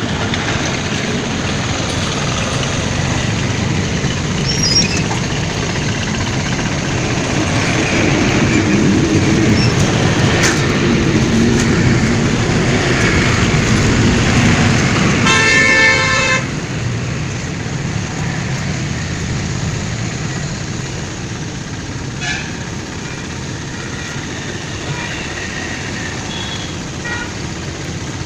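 Steady road traffic noise that swells for a while, then a vehicle horn honks once for about a second. After that the traffic noise settles down a little.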